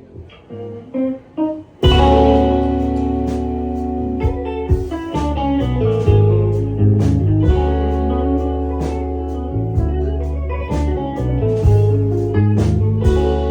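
Live rock band playing an instrumental passage. A few single guitar notes sound alone, then about two seconds in the full band comes in with drums, bass and guitar and keeps playing.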